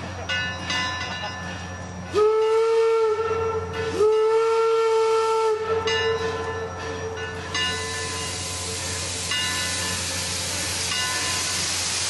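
Steam whistle of the 4-4-0 steam locomotive Eureka & Palisade No. 4 sounding two blasts, the second longer, each sliding up into a steady tone, as the train departs; then a steady hiss of escaping steam.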